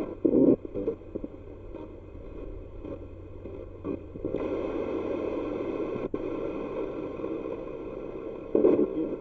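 Spirit box sweeping through radio stations: steady static broken by short chopped blips of broadcast sound, with a louder burst near the start and another near the end.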